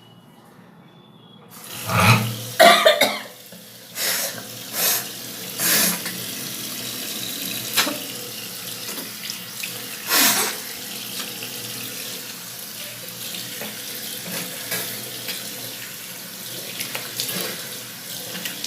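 Water tap running into a wash basin, starting about a second and a half in. Over it, a woman sneezes and blows her nose several times in loud, sudden blasts, the loudest in the first few seconds and the last about ten seconds in; black pepper has set off the sneezing.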